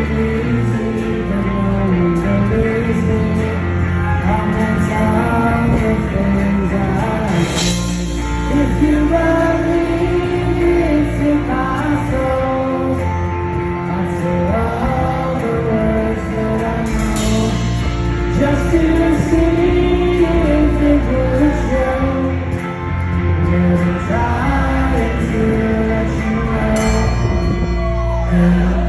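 Rock band playing live through a large PA, with a male lead vocal sung over electric guitar, bass and drums.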